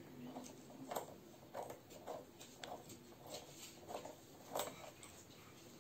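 Faint handling noises: small irregular clicks and soft rustles as fingers work a small plastic part.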